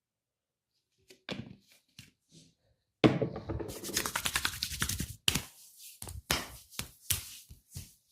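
Hands striking skin in a percussive massage: a few scattered hits, then a fast run of chopping strokes about three seconds in, then single slaps about three or four a second.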